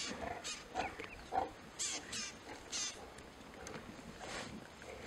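A pride of lions, a lioness and her nearly year-old cubs, growling and grunting in short repeated bursts as they feed together on a young giraffe carcass.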